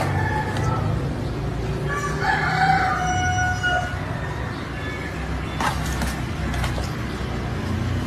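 A rooster crowing once, from about two seconds in, over a steady low rumble.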